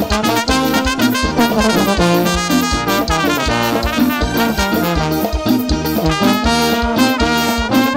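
Lambadão dance music from a live band recording: a horn-led melody over bass and a steady, driving beat.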